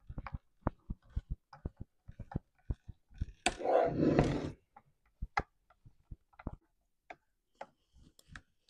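Clicks and knocks of a chainsaw's plastic recoil starter housing being fitted and its screws driven in with a T-handle driver, with a longer, louder scraping rasp about three and a half seconds in that lasts about a second.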